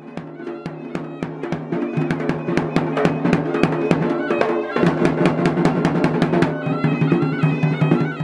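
Background music: a drum-led piece with rapid, regular drum strikes over steady low notes, growing louder over the first few seconds.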